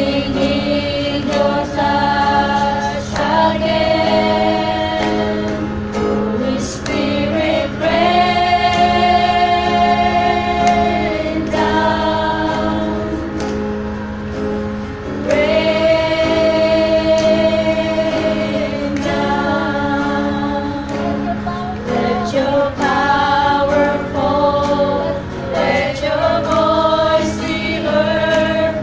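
A small group of women singing a worship song in unison, with long held notes, over a strummed acoustic guitar.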